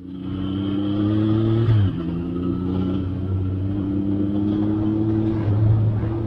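Triumph Sprint ST 955i's three-cylinder engine pulling the motorcycle along, its revs climbing slowly, then dropping sharply once about two seconds in before climbing slowly again.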